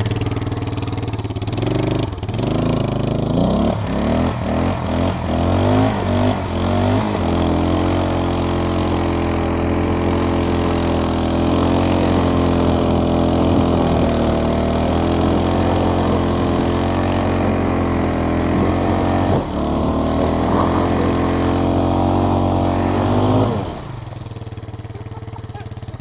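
Four-wheeler (ATV) engine revving in several short bursts, then running steadily at high revs while towing a snowboarder on a rope through snow. The engine drops back near the end as the throttle is released.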